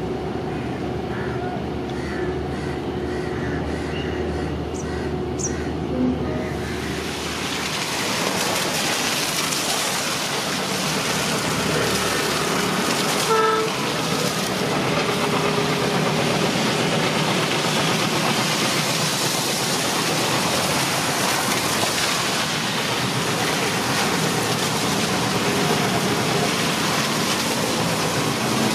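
Train running on the rails: the rumble turns into a loud rushing noise about six seconds in and stays loud. A brief horn toot comes about halfway through.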